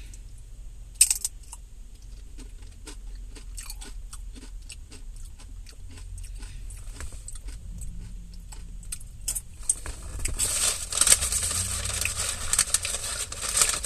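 Close-up crunching and chewing of tortilla chips topped with guacamole: a sharp bite about a second in, then irregular crunches that grow louder and denser over the last few seconds.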